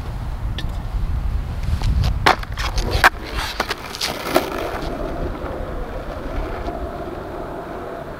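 Skateboard on asphalt: several sharp clacks as the rider steps onto the board and pushes off, then the wheels rolling along the path, the rolling noise slowly fading as the board moves away.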